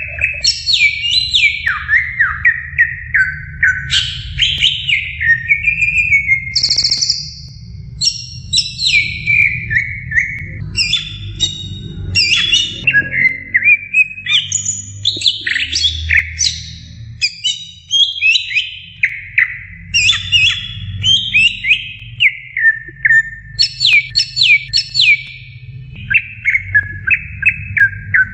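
Greater green leafbird (cucak ijo) singing a long, rapid, varied song of quick falling whistles and trills, phrase after phrase with hardly a pause, over a steady low hum.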